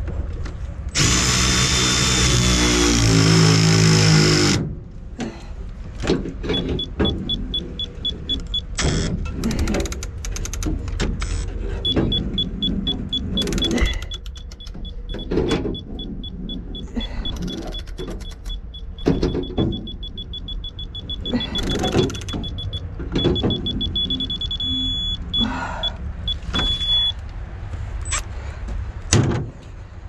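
Ratchet clicks from a digital torque wrench tightening generator lugs, with a high, evenly pulsing electronic beep through most of it. A loud whirring run of a few seconds comes about a second in.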